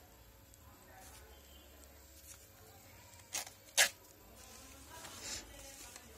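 A sheet of A4 paper torn along the edge of a plastic ruler: two short, sharp rips about half a second apart a little past three seconds in, then softer paper rustling as the sheet is handled.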